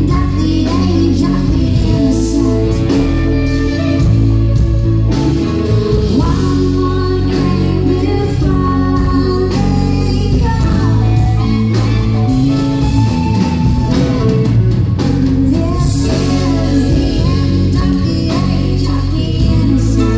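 Live rock band playing: electric guitar lead with bending, gliding notes over electric bass and drums, heard from the audience.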